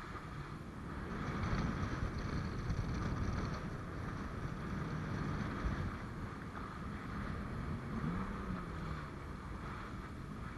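Jet ski running under way across open water, its engine rumbling under the hiss of spray off the hull and wind buffeting the microphone. The engine note rises and falls briefly about eight seconds in.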